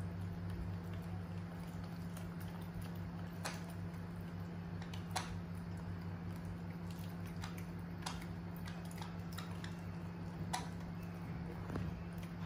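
Young macaques eating soft mashed food by hand: faint chewing and squishing, with a few sharp wet clicks scattered through, over a steady low hum.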